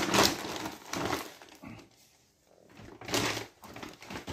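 Rustling and light knocking from groceries and packaging being handled, in two short bursts: one at the start and one about three seconds in, with a quiet gap between.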